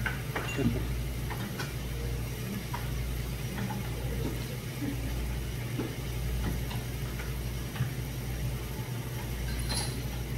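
Steady low mechanical hum of restaurant machinery, over faint sizzling from meat on a tabletop grill pan, with a few light clicks of tongs and tableware and one sharper clink near the end.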